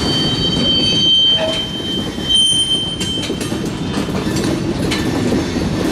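Loaded covered hopper cars of a cement train rolling slowly over the track with a steady steel-wheel rumble. A high-pitched squeal sounds over roughly the first three seconds, and a few wheel clicks come near the middle and end.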